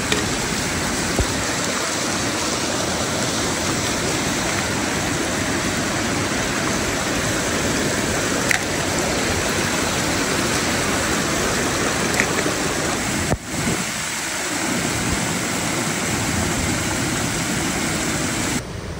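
Steady rush of water with a brief dropout about two-thirds of the way through.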